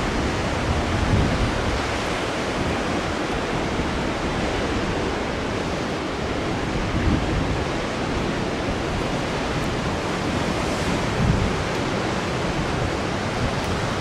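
Heavy surf breaking on a rocky shore below, a steady wash of noise, with wind gusting on the microphone now and then.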